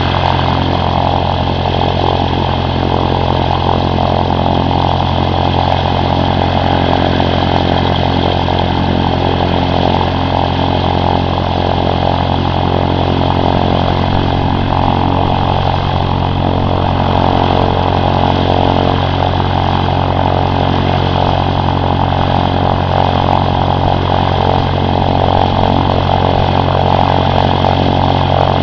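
Cessna 152's four-cylinder Lycoming O-235 engine and propeller running steadily, its note even and unchanging throughout.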